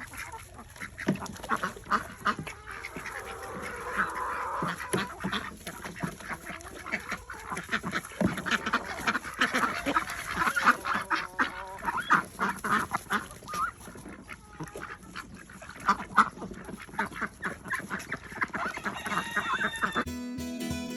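A flock of domestic waterfowl calling, with many short, overlapping calls throughout. Music comes in near the end.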